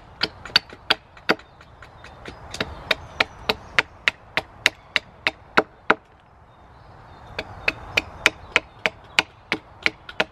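Blade cutting into wood in quick, regular strokes, about three a second, while carving a wooden spoon. The strokes stop for a moment a little past the middle, then resume.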